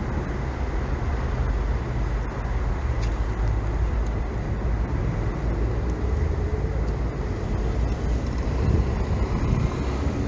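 Outdoor city street ambience: a steady low rumble of traffic, with a faint steady high tone over it.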